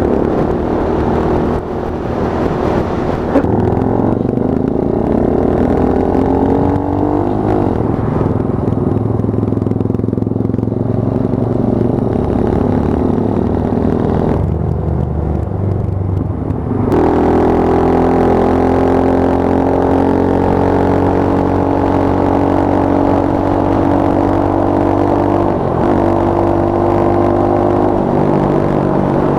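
Small single-cylinder Monkey Bike engine under way, its pitch rising as it revs up and dropping back at each gear change. About fifteen seconds in it falls to lower revs for a couple of seconds, then pulls up again and holds a fairly steady speed.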